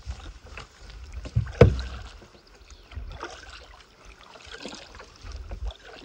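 A canoe being paddled: paddle strokes through the water with irregular knocks of the paddle on the canoe, the loudest about a second and a half in, over a low rumble of wind.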